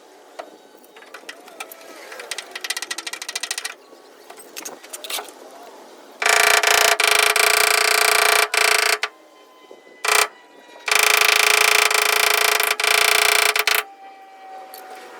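A motor-driven tool with rushing air runs in two bursts of about three seconds each, with a short blip between them. Before that comes a run of rapid light ticking.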